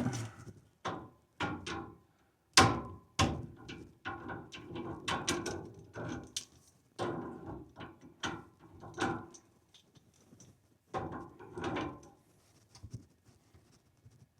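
Channel-lock pliers clicking and clanking on the brass flare-nut fittings of a water heater's gas line as they are tightened: an irregular run of sharp metal knocks with short pauses.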